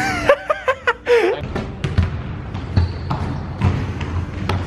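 A brief burst of voices, then a run of dull thumps and clicks about half a second to a second apart, over background chatter.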